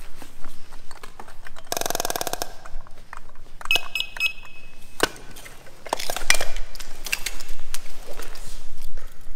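Scott SCBA air pack being brought into use: a brief buzzing rattle, then a quick run of high electronic beeps and a single later beep, the start-up alarms of the pack. Clicks and clunks of the harness, buckles and cylinder are heard as the pack is handled and put on.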